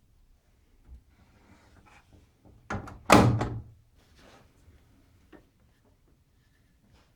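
Washing machine door being shut: a light click, then a solid thunk about three seconds in.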